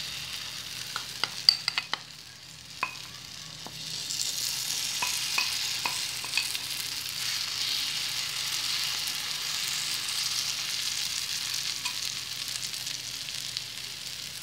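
Green-chickpea batter sizzling in oil on a hot tawa. Sharp clicks of a metal spoon on the pan come in a quick cluster in the first two seconds and a few more around the middle. The sizzling grows louder about four seconds in as more batter goes into the oil.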